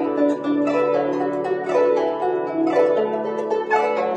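Guzheng played with finger picks: a run of plucked notes ringing on, while a low note sustains beneath, and a new low note enters about three seconds in.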